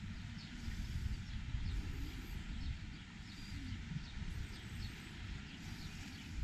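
Outdoor ambience of wind rumbling on the microphone, with faint, scattered high chirps of birds.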